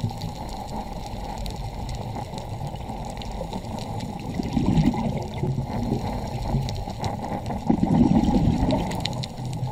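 Muffled underwater sound as picked up through a camera housing over a coral reef: a steady, low water noise with faint scattered clicks, swelling louder twice, about halfway through and again near the end.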